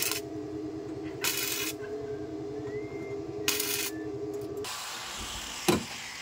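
Short welding bursts on rusted sheet-metal body panels, three crackling spurts of about half a second each over the steady hum of the machine and shop. Near the end, two sharp metal strikes as a hammer knocks at the rusted panel.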